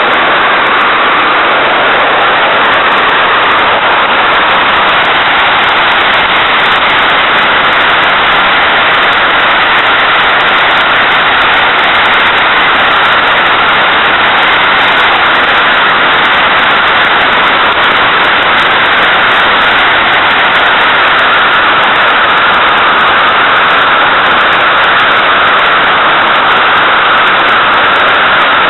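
Steady, loud wind noise from airflow over the exposed microphone of a mini camera on a Puchacz glider during its winch launch and climb: an even hiss with no engine tone in it.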